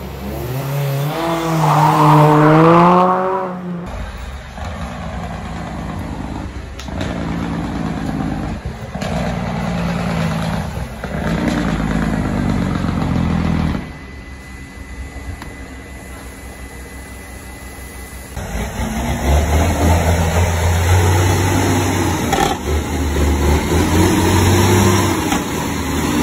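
Heavy diesel truck engines running and revving, with a loud wavering tone for the first few seconds. The sound changes abruptly several times, and a deep engine gets louder near the end.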